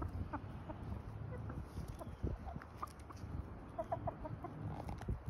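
Hens clucking softly in short, scattered notes while feeding, with light taps of beaks pecking grain off the dirt and a low rumble underneath.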